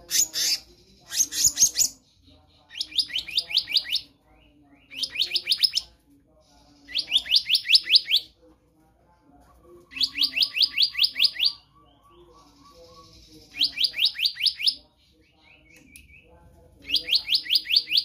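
Black-naped monarch singing: repeated phrases of rapid, ringing whistled notes, about eight notes a second in each phrase, with pauses of a second or two between phrases. Two short, harsher calls come first.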